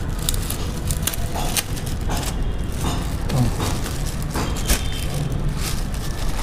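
Clear plastic wrapping crinkling and rustling as hands pull it off a subwoofer, in irregular sharp crackles with the loudest near the end, over a steady low background rumble.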